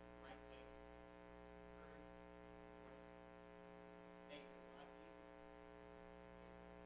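Near silence with a steady electrical mains hum, and a class member's voice faintly heard off-microphone now and then.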